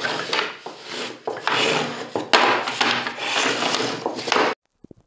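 Pine boards being handled and slid against one another: wood rubbing with light knocks, which cuts off abruptly near the end.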